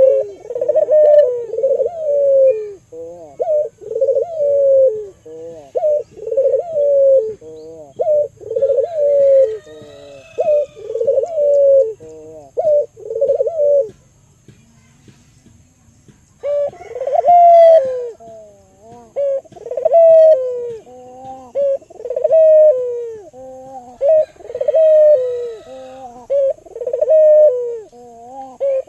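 Albino local puter dove cooing: a long run of quick, rolling coos, roughly one to two a second, broken by a pause of about two seconds about halfway through before it starts again.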